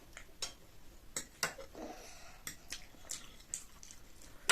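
Eating sounds from chow mein noodles: wet mouth smacks and chewing, with scattered small clicks.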